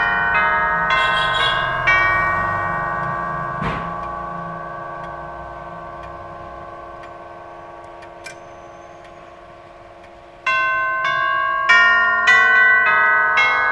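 Howard Miller 610-172 grandfather clock's nine tubular chimes, struck by its Urgos movement, playing a chime tune. After a quick run of notes the tubes ring on and slowly fade for about eight seconds, with a soft knock early in the lull. The strikes start again about ten seconds in.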